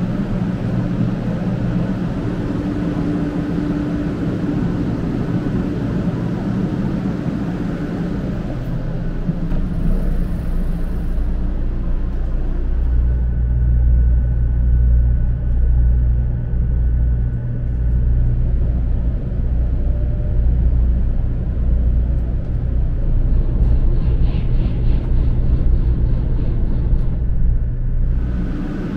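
Running noise of the 500 Series Hello Kitty Shinkansen. A broad rushing hum at first, then from about twelve seconds in a deep, steady rumble, heard from inside the carriage with the train in motion.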